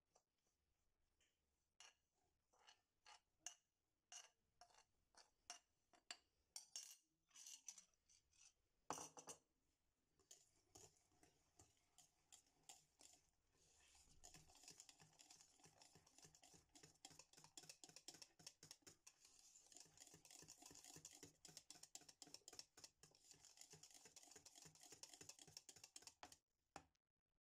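A spoon scraping and tapping against a ceramic bowl of dry powder in scattered clicks, then, from about halfway in, a wire whisk beating a liquid mixture in a stainless-steel saucepan as a quick, steady run of ticks that stops just before the end.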